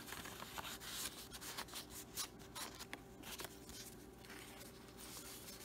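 Paper and card being handled: a journaling card and a paper envelope pocket rubbing and ticking against the journal's pages as they are moved, a string of soft scrapes and ticks that thins out after about three seconds.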